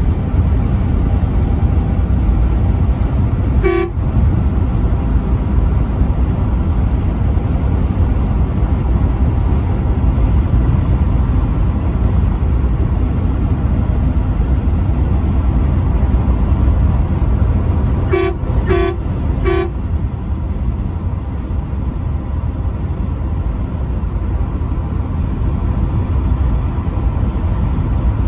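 Truck horn giving short toots over the steady low rumble of the truck driving on the highway: one brief toot about four seconds in, then three quick toots in a row a little past halfway.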